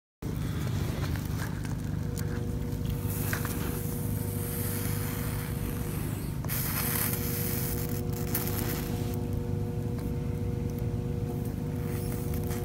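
Wind rumbling on the microphone outdoors while a copper radial tie wire is soldered, with a hiss that swells twice, about three and about seven seconds in.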